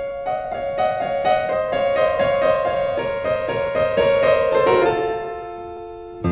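Background piano music: a melody of quick, evenly spaced notes that settles into held notes near the end.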